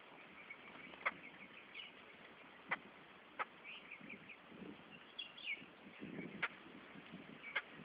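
Small birds chirping in short, scattered high calls, with a few sharp ticks and some soft low calls in between.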